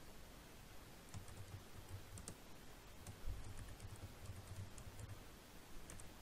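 Typing on a computer keyboard: irregular runs of keystroke clicks, starting about a second in and going on in bursts.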